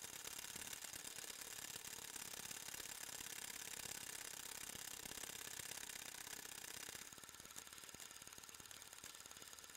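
Faint, fast, even clatter of a cine film mechanism running, the whirring tick of film being pulled frame by frame. It drops a little in level about seven seconds in.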